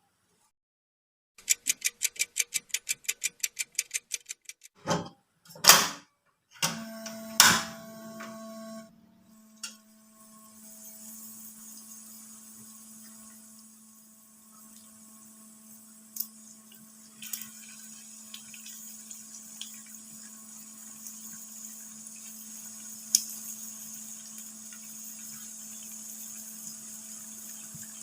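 A fast run of about a dozen sharp clicks, then three loud knocks, after which a steady hum sets in with a faint high hiss and occasional ticks, typical of kitchen equipment being switched on and left running.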